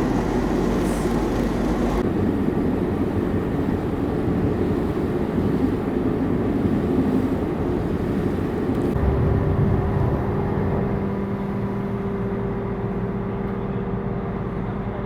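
Passenger ferry's engine running steadily, a dense low rumble. About nine seconds in it settles into a steadier hum with a clear held low tone.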